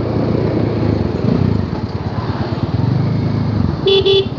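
Bajaj Dominar 400's single-cylinder engine running with a steady pulsing beat that rises and falls in loudness. A horn beeps once, briefly, near the end.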